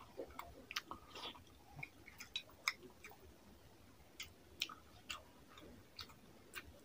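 Close-miked eating by hand of rice mixed with fish curry: irregular wet, sticky clicks and smacks, about two or three a second.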